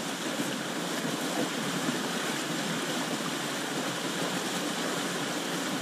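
Water rushing steadily through and out of a concrete culvert pipe.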